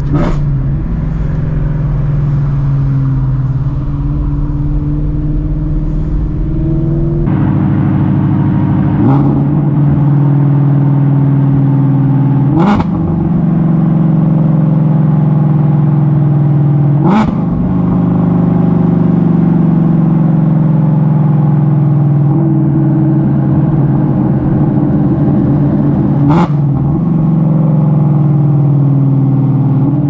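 Shelby GT350's 5.2-litre flat-plane-crank V8, with long-tube headers and its exhaust valves open, heard right at the tailpipe, running loud under light driving, its pitch rising and falling with throttle and gear changes. A few sharp exhaust pops break through: the engine is backfiring.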